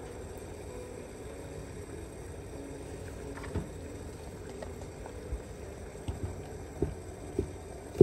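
Light handling noises, a few soft taps and clicks, as radish pieces are set into a wooden steamer basket of pork-wrapped asparagus rolls, over a steady low hiss. A sharper knock comes at the very end.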